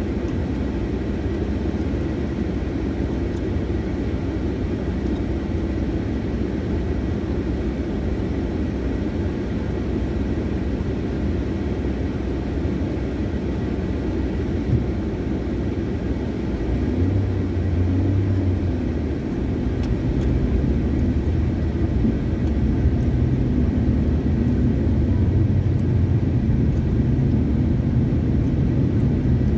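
Car cabin noise heard from inside the car: a low, steady hum while stopped at a traffic light, then a little over halfway through the car pulls away, and the engine and road rumble grow louder and stay up as it drives on.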